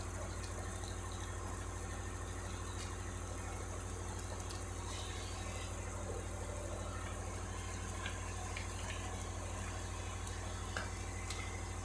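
A steady low hum, with a faint hiss and a few soft ticks from a lidded pan of fish and vegetables simmering on the stove.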